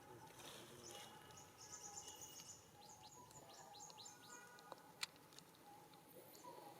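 Faint bird chirping in quick high notes, with one sharp click about five seconds in.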